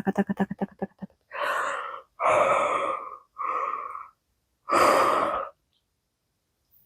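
Four forceful, breathy whispered exhalations, each about a second long, with no voiced pitch, as a channelled utterance drops into a whisper.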